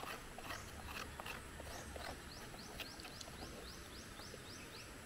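Faint clicks of a metal spoon scraping young coconut flesh from the shell, then a bird's quick trill of about a dozen high rising chirps, about seven a second, lasting about a second and a half.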